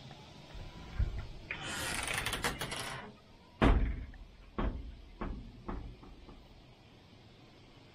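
Toilet-stall door being pushed open: a scrape lasting over a second, then a loud knock and a few lighter knocks that fade.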